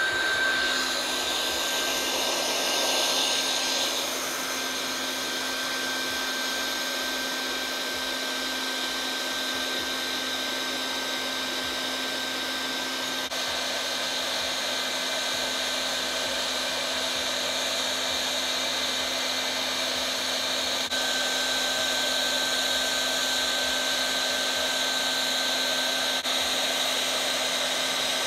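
Hot-air plastic welding gun blowing steadily while welding HDPE sheet along a seam: an even rush of hot air with a steady high whine from its blower.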